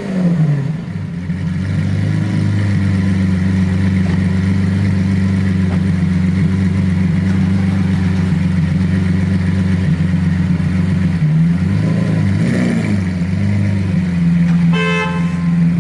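Lamborghini Aventador's V12 just after start-up, its start-up rev dropping away in the first half second, then idling steadily. A brief throttle blip comes about twelve seconds in, and a short car horn toot near the end.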